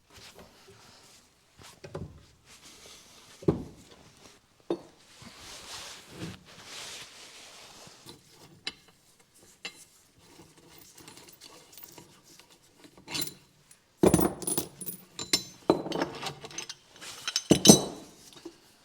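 Metal tools and parts clinking and knocking on the bench while a bushing is pressed into a car's rear trailing arm with a clamp. Scattered light clicks and knocks, with louder ringing metal knocks about 14 seconds in and again near the end.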